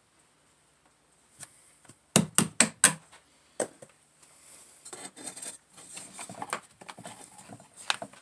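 Four quick sharp knocks, then one more, as a plastic sprue former is worked loose and pulled out of a petrobond sand mold in a wooden flask. A stretch of light scratching and rustling follows, with a sharp click near the end.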